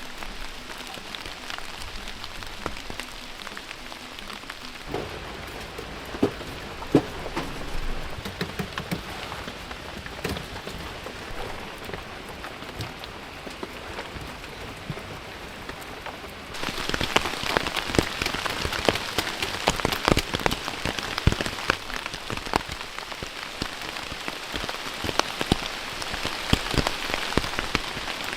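Steady rain falling, with many separate drops striking close by. It gets abruptly louder and heavier about sixteen seconds in.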